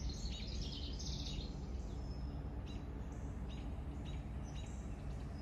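Birds chirping: a quick run of chattering calls in the first second or so, then short high calls repeating about once a second, over a steady low rumble.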